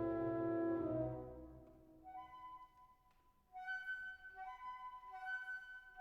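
Instrumental background music. A held low chord fades out over the first two seconds, then a light, high melody of short repeated notes starts.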